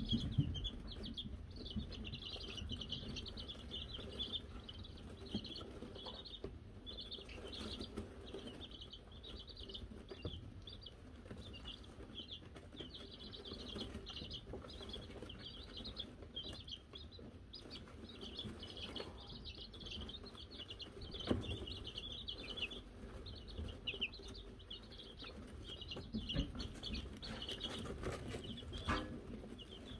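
A brood of Wyandotte chicks peeping continuously, a dense stream of high-pitched cheeps, with a few soft knocks scattered through.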